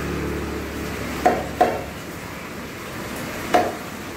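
Meat cleaver chopping chicken on a thick wooden chopping block: three sharp chops, two in quick succession a little over a second in and a third near the end.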